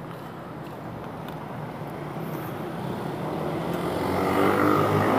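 Street traffic noise, with a motor vehicle's engine approaching and growing steadily louder over the last few seconds.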